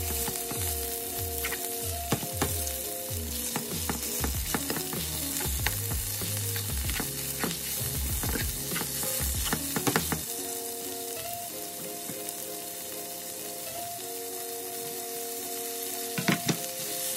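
Chicken sausage and red bell pepper sizzling steadily in olive oil in a frying pan. Occasional sharp clicks come from a utensil working the meat in the pan.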